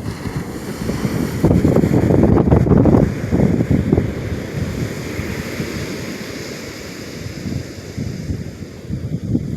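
Ocean surf washing on a beach under heavy wind buffeting on the microphone. The wind rumble is loudest in gusts during the first few seconds, and the hiss of the breaking waves swells around the middle.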